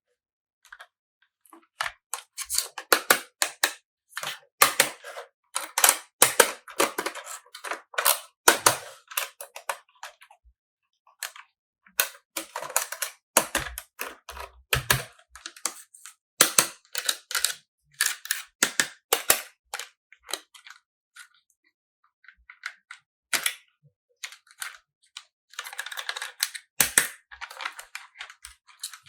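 Quick runs of sharp clicks and taps from small plastic toy pieces and packaging being handled, with a short rustling stretch near the end.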